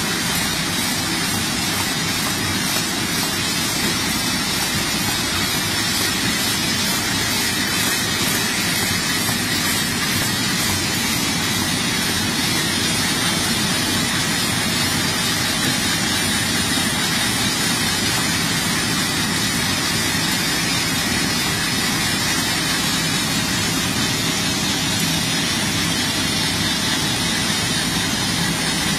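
Automatic carton folder-gluer running: a steady, unchanging mechanical whir of belts, rollers and drives as cartons feed through, with a faint constant high whine.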